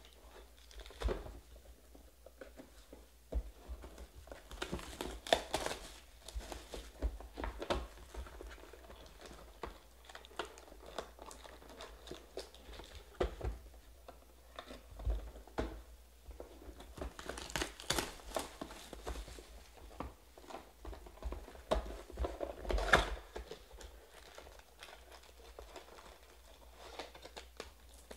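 Hands handling Panini Prizm football card boxes and packs: foil pack wrappers crinkling and cardboard rustling, with short clicks and scrapes. Louder bursts of crinkling come three times, about five, eighteen and twenty-three seconds in.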